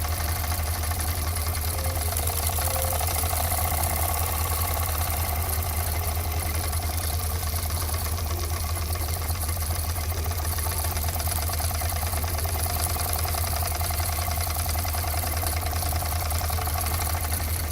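Jensen No. 70 model live-steam engine running steadily, with a fast, even beat over a low hum.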